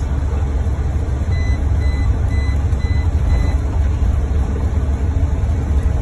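Steady low engine and road rumble inside the cabin of a moving vehicle. Between about one and four seconds in, a run of about six short, high beeps sounds, roughly two a second.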